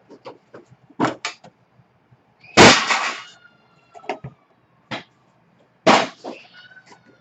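A small cardboard trading-card box and its packaging being handled and opened by hand: a few light knocks and taps on the table, with two louder bursts of rustling packaging, about two and a half seconds in and again near six seconds.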